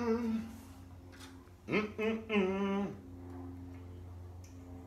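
A man humming a few wavering notes, once at the start and again about two seconds in, over a steady low electrical hum, with a few faint clicks.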